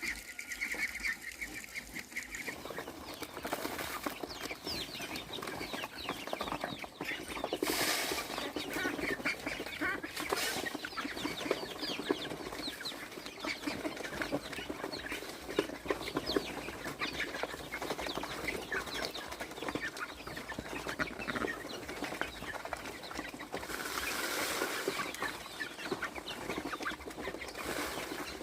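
Chickens clucking and chirping in a flock, with several short noisy bursts, about four in all, that fit wings flapping.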